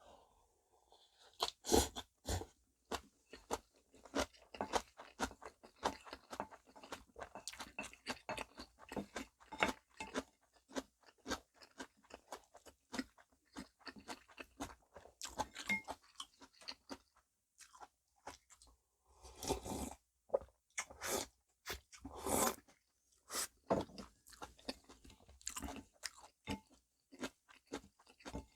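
Close-miked chewing of namul bibimbap: a steady run of wet smacks and crunchy clicks from mouthfuls of rice and seasoned vegetables, with a few louder bursts of chewing about two-thirds of the way through.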